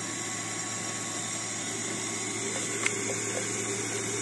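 Bosch kitchen machine's electric motor running steadily on low speed, driving the press attachment that juices red currants: an even hum with one short click near the middle.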